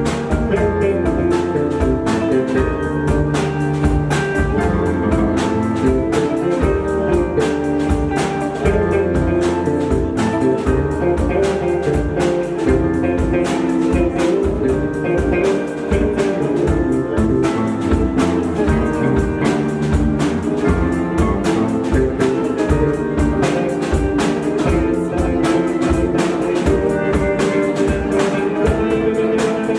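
A band playing an instrumental passage: guitar chords and notes over a drum kit keeping a steady beat.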